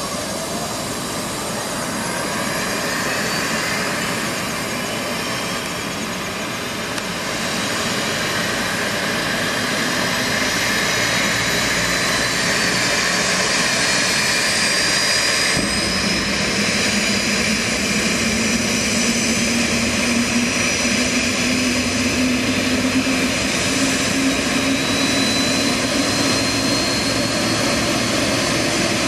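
Boeing 737-800's CFM56-7B turbofan engine starting up: a whine that climbs steadily in pitch as the engine spools up. A lower drone joins about halfway through and slowly rises with it.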